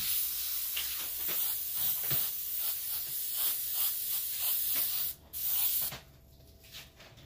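Airbrush spraying paint in a steady hiss as strokes are drawn. It breaks off about five seconds in, sprays again for a moment, then stops about six seconds in as the trigger is released.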